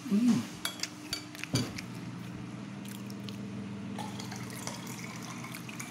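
Eating at the table: a short hummed 'mm', then a quick run of clicks of a metal spoon against a ceramic plate in the first second and a half, followed by soft wet mouth sounds of chewing over a steady low hum.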